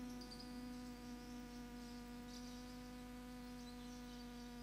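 Faint steady electrical hum from a sound system, with a few faint high chirps.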